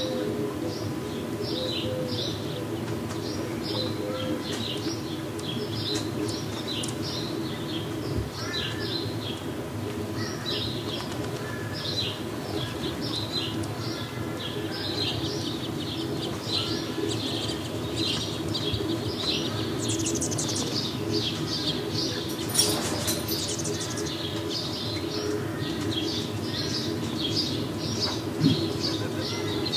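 Small birds chirping, many short high calls repeating quickly one after another, over a steady low background hum. A louder, sharper burst comes about two-thirds of the way in.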